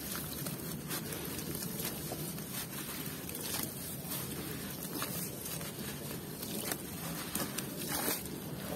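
Wet red dirt being squeezed and crumbled by hand in a basin of muddy water: continuous squelching and sloshing, with scattered small wet clicks and drips.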